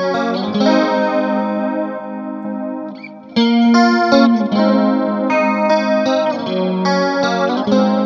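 Clean electric guitar playing chords through the chorus pedals. The first three seconds are dry with the pedals bypassed; after a short pause the guitar comes back louder with chorus switched on.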